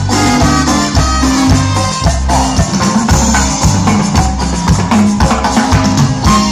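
Live band playing Latin dance music, with a bass line and drums keeping a steady beat.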